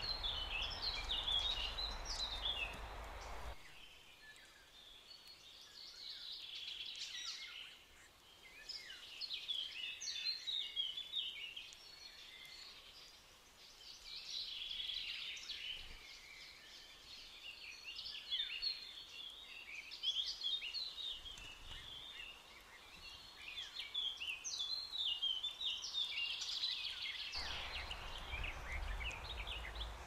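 Several songbirds singing and calling at once in a continuous chorus of quick, high chirps and trills. A low rushing noise sits under it for the first few seconds and again near the end.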